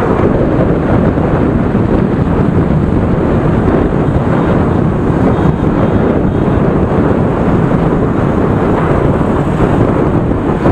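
Wind buffeting the microphone of a camera riding in motorbike traffic: a loud, steady rush, with the hum of the motorbike engines mixed in underneath.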